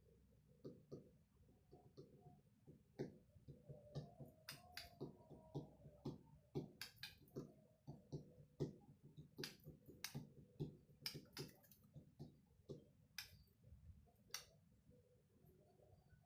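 Irregular light clicks and taps, a few each second, coming in uneven clusters and stopping about two seconds before the end.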